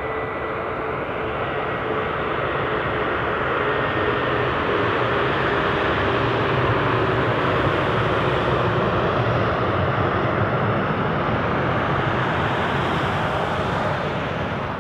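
Fokker twin-jet airliner on final approach with landing gear down, its rear-mounted Rolls-Royce Tay turbofans whining over a steady rush of jet noise. The whine glides slowly lower in pitch as the noise swells while it flies past, then eases slightly near the end.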